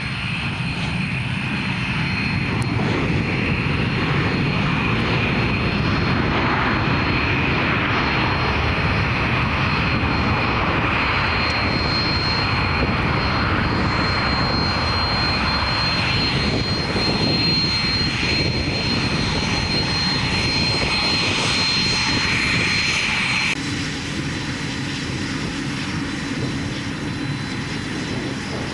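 Twin Rolls-Royce BR725 turbofans of a Gulfstream G650ER during a landing rollout, growing louder just after touchdown and running loud and steady with a thin high whine. About 23 seconds in the sound cuts off abruptly to a quieter, steady engine hum as the jet taxis.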